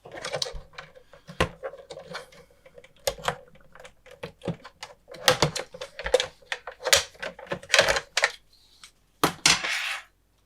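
Tektronix TDS 210 oscilloscope case being forced open by hand: an irregular run of sharp clicks, knocks and scraping rattles, busiest in the second half.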